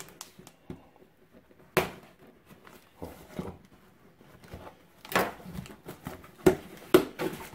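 Cardboard box being opened: a knife blade slitting the packing tape along the seam, with hands scraping and knocking the box. There are a handful of short, sharp scratchy strokes, one about two seconds in and several close together in the last two and a half seconds.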